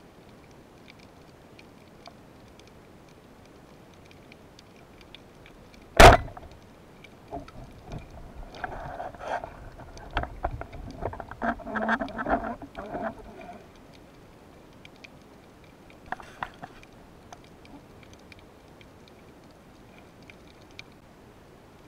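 Underwater, a band-powered speargun fires with one sharp, loud crack about six seconds in. For several seconds after, knocks and rattles as the speared fish struggles on the shaft and shooting line, with a few more clicks a little later, over a faint crackle of small ticks.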